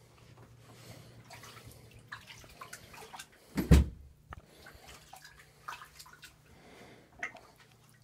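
Faint scattered clicks and knocks over a low steady hum, with one loud dull thump about four seconds in.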